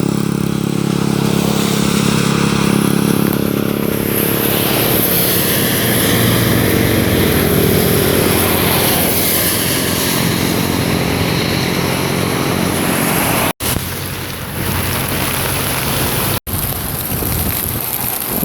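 Road traffic passing in heavy rain. A vehicle engine's hum is strongest at the start, over a steady hiss of rain and wet tyres. The sound cuts out briefly twice near the end.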